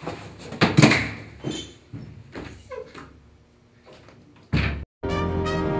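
A door banging shut: two loud knocks close together just under a second in, then fainter knocks and rustling. Near the end the sound cuts out abruptly and music begins.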